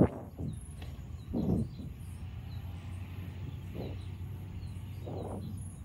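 Background ambience: a steady low hum with faint bird chirps and a few soft handling noises. A sharp click comes at the very start.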